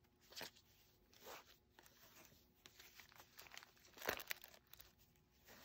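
Faint rustling of a crinkled fabric ribbon being pulled and tied into a bow, with a few brief soft scrapes against paper, the loudest about four seconds in.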